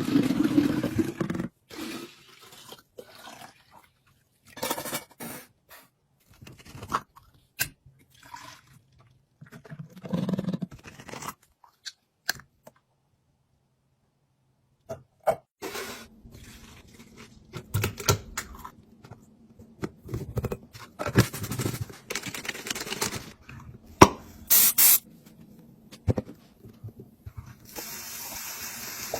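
Containers and packaging being handled during a fridge restock: scattered scrapes, taps and rustles, with a pause of near silence midway and a steady hiss near the end.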